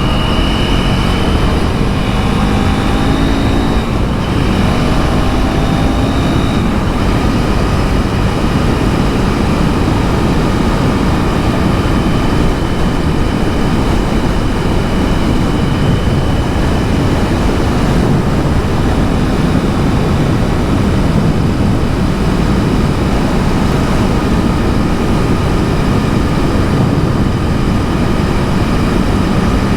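KTM 390 Duke's single-cylinder engine pulling up through the revs in the first few seconds, with short breaks like gear changes, then running at a steady cruise under a heavy rush of wind and road noise.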